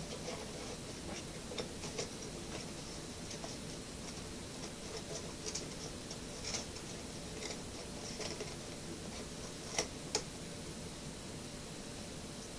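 Small clicks, taps and crinkles of hands opening and handling Shopkins toy packaging: a small cardboard box and a foil pack. Two sharper clicks come close together near the end, over a steady faint hiss.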